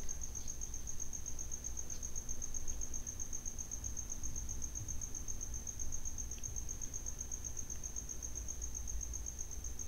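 A cricket trilling steadily in fast, even pulses at a high pitch, over a low steady hum.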